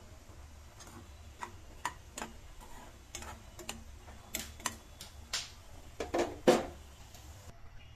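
Irregular clicks and taps from a spatula in a pan of small taki fish boiling in water, several a second, the loudest near the end, over a faint low hum.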